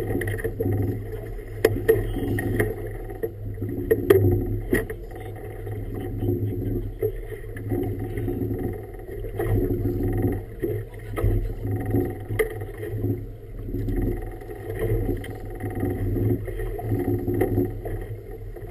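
Choppy river water slapping and rushing against a boat's hull in uneven surges, over a steady low hum. A few sharp knocks come through, the loudest about four seconds in. All of it is muffled, as heard through a sealed camera housing mounted low on the boat.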